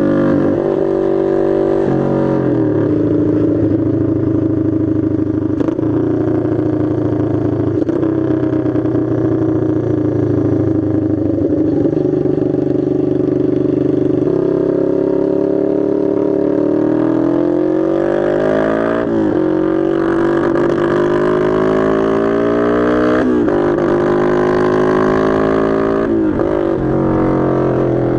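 Honda motorcycle engine with an open exhaust, ridden on the road: the pitch climbs as it accelerates and drops sharply at each of several gear changes, with a steadier cruising stretch in the middle.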